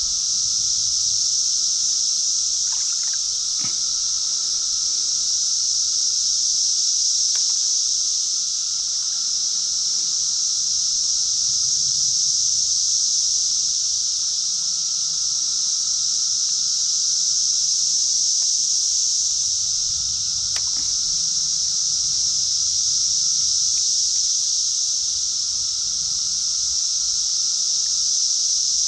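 Steady high-pitched drone of insects in the trees, with low water sloshing underneath from wading in the creek, and a few faint ticks.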